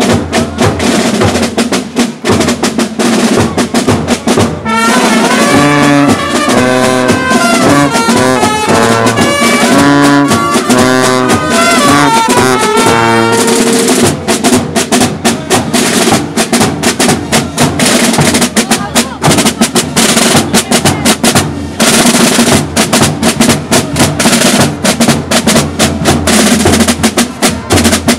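Folk marching band playing in the street: rope-tensioned marching drums beaten with wooden sticks keep up a dense, steady marching beat. From about 5 to 14 seconds in, a brass tune on trumpet and sousaphone plays over the drums, and after that the drums carry on alone.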